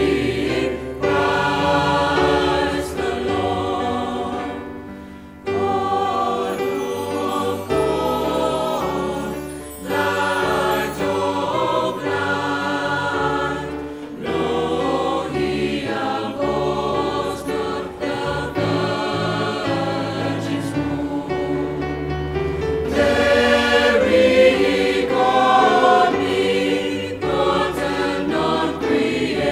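Mixed choir of women's and men's voices singing a Christmas hymn in parts, in phrases of a few seconds with short breaks between them.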